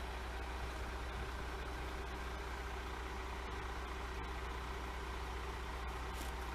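Crane truck's engine running steadily, an even low hum that does not change.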